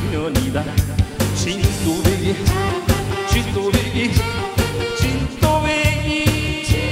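Upbeat Korean trot music played loud over a PA, with a steady beat and a pitched melody line.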